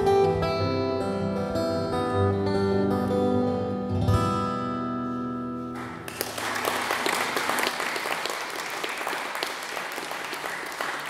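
Acoustic guitar playing the closing chords of a song, the last chord left ringing, then an audience applauding from about six seconds in.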